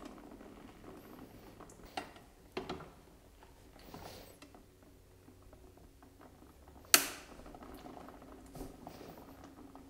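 Steel frame and levers of a hand-operated four-fold paper briquette press being worked by hand, just after it has broken: soft creaks and rattles, a couple of sharp clicks about two seconds in, and one loud metallic clack about seven seconds in.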